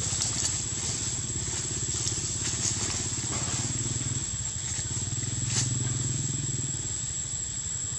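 A small engine running steadily, with a low, fast-pulsing hum and a thin, steady high whine over it. There is one sharp click about five and a half seconds in.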